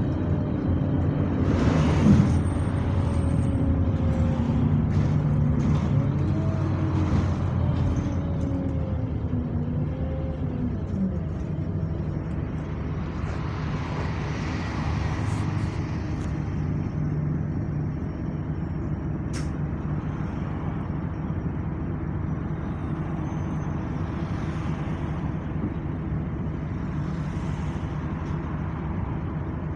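Bus engine and drivetrain running as the bus drives, heard from inside the passenger saloon, its pitch sliding up and down over the first ten seconds and then settling to a steady run. A short loud burst of noise about two seconds in.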